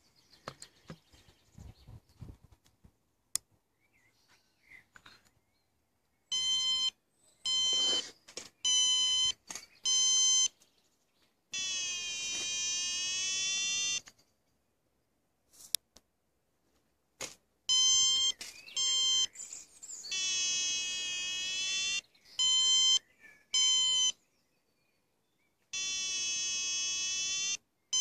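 BlueFly electronic variometer sounding: runs of short, sharp beeps alternate with longer continuous tones that waver slightly in pitch, starting about six seconds in after some faint handling noise. On a vario, beeping signals climb and a steady tone signals sink.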